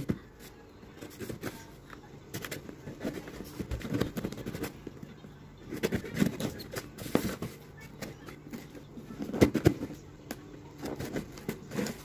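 A kitchen knife slitting and scraping open a shipping parcel, with irregular crinkling, tearing and tapping of the packaging as it is worked open; the loudest clatter comes about three quarters of the way in.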